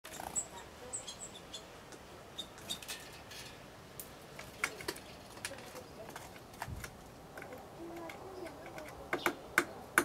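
Great tit hammering a seed with its bill on the wooden bird table to crack it open: irregular sharp taps, the loudest near the end.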